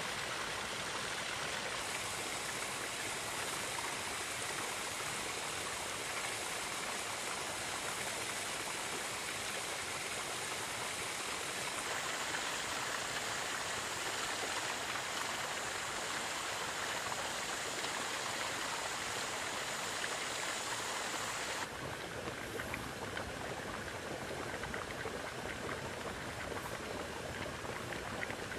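Steady rush of running water at a volcanic hot-spring site, from a stream spilling over rocks and a spring pool bubbling with rising gas. The tone of the water noise shifts abruptly about two seconds in, a little before the middle, and about three-quarters of the way through.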